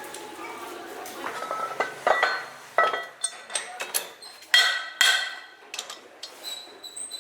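A series of sharp metallic clinks and knocks at irregular intervals, several ringing briefly after the strike.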